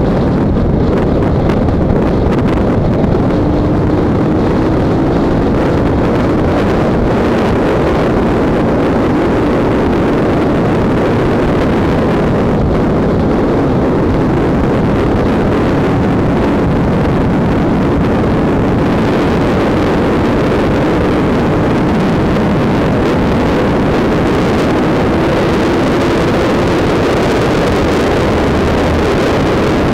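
Honda CBR sport motorcycle riding at a steady cruise: wind rush on the camera microphone over the engine, whose faint tone drifts slightly up and down with the throttle.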